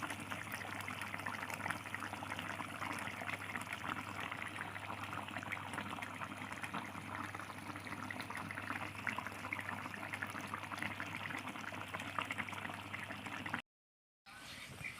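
Chicken Bicol Express simmering in coconut milk, a steady dense bubbling over a low hum, cut by a brief dead silence near the end.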